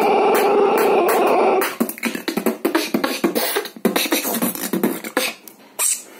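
Solo beatboxing. For the first second and a half it is a steady, held vocal tone over regular beats; then it breaks into a fast run of sharp, separate percussive hits, with a last short burst near the end.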